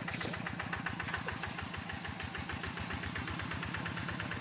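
Single-cylinder diesel engine of a two-wheel hand tractor running steadily with a fast, even putter while it pulls a moldboard plough. A brief hiss sounds about a quarter second in.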